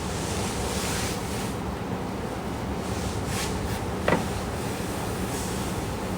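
A sleeping woman breathing noisily, in soft airy breaths about every two seconds. About four seconds in there is a brief sound that falls in pitch, the loudest moment.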